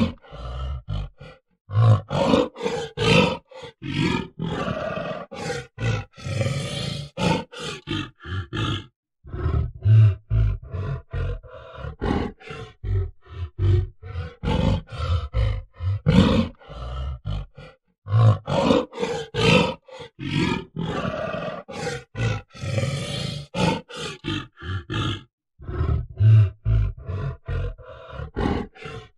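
Gorilla grunting: a quick run of short, deep guttural grunts and roars, broken by brief pauses a few times.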